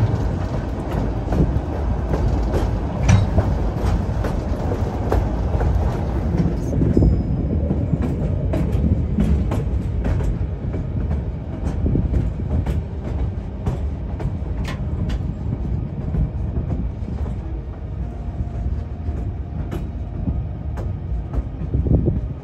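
Narrow-gauge passenger train running along the track, a steady low rumble of wheels on the rails with scattered clicks and knocks from the rail joints and cars.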